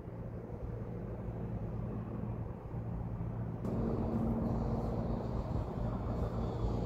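A vehicle's engine running, a steady low hum with road noise; it grows louder about halfway through, with a slightly higher tone coming in.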